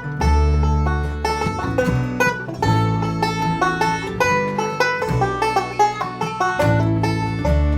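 Bluegrass band playing an instrumental break: quick banjo picking over double bass and guitar, with the bass changing notes about once a second.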